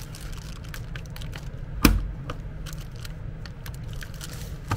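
Buttons of the handheld control pendant of a MET Atlant B patient-lift control box being pressed through its plastic wrapping: scattered small clicks and plastic crinkling, with one sharper click about two seconds in. No motor answers the presses: the control unit is powered but does not respond.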